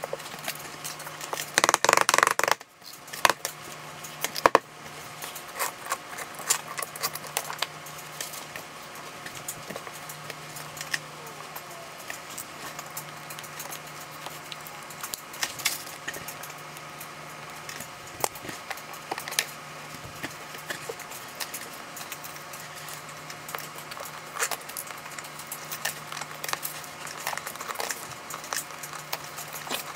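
Scattered light clicks and taps of marble subway tiles and plastic tile spacers being handled and pressed into place on a wall, over a low steady hum. A louder burst of noise lasting about a second comes about two seconds in.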